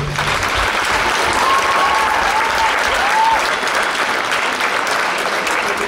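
Audience applauding, with a few short high calls rising and falling over the clapping about one and a half to three seconds in.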